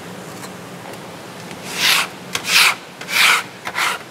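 A metal-bladed scraper drawn across a plastic cutting board in four scraping strokes, starting about halfway through.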